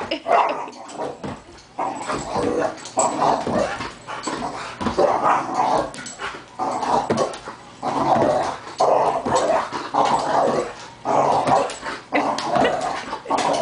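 Dog vocalizing in rough play, in a run of short bursts about once a second.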